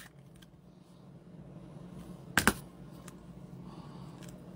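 Trading cards being handled at a table: a few small ticks and a sharp double click about two and a half seconds in, over a faint low steady hum.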